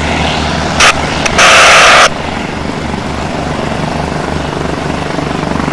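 Single-engine light plane's piston engine running steadily at takeoff power during its takeoff roll. A short burst of loud hiss comes just under a second in, and a longer, louder one lasts about a second shortly after.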